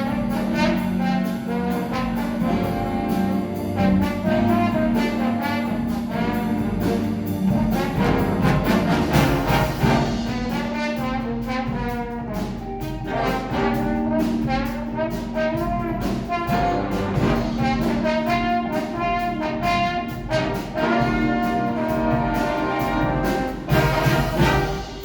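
Instrumental music led by brass, with trumpet and trombone lines moving over a held low note.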